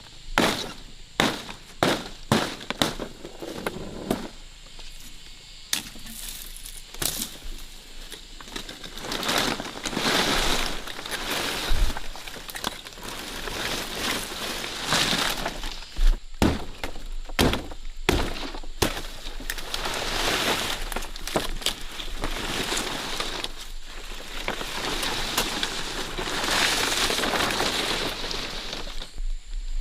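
Irregular sharp cracks and knocks, coming thick and fast at first and then now and again, between stretches of rustling or scraping noise.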